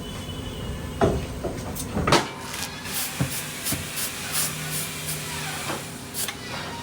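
Tyre-shop work sounds: a steady hiss whose low rumble drops away about two seconds in, followed by a run of scattered sharp metal clicks and knocks.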